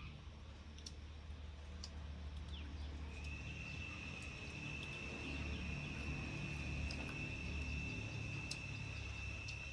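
An insect's steady high trill, starting about three seconds in and holding one pitch, over a low rumble with scattered clicks.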